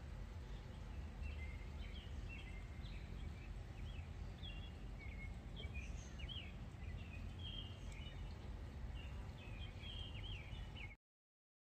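Birds chirping in short, quick calls over a faint, steady low outdoor rumble, all cutting off abruptly near the end.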